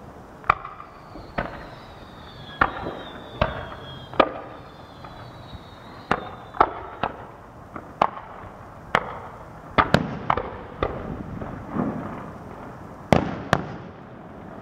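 Aerial fireworks bursting: a string of sharp bangs at irregular intervals, around a dozen and a half, with faint falling whistles during the first few seconds.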